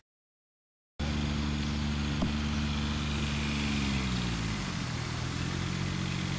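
Silence for about the first second, then a small engine running steadily nearby, its pitch dropping a few seconds in as it slows down. A faint click about two seconds in.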